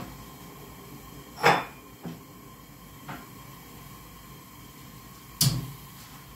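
Kitchen wall-cabinet door being opened and shut while a glass cup is taken out: a loud knock about one and a half seconds in, a couple of small clicks, then a second sharp knock near the end.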